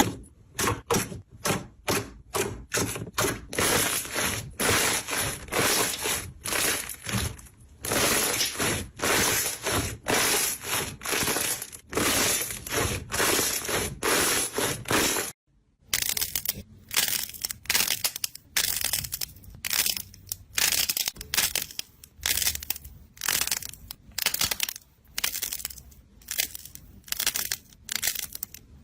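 Slime being pressed and squished by hand, making repeated short crackling squishes at about two to three a second. A brief silence about halfway through is followed by a similar run of squishes.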